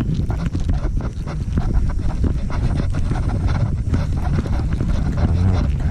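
Wind buffeting the microphone as a steady low rumble, with irregular small knocks and clicks throughout.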